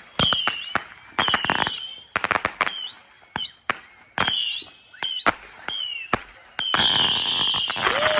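Consumer fireworks going off in a rapid series of sharp bangs, many followed by a short high whistle. About six and a half seconds in they turn into a dense, continuous crackling barrage.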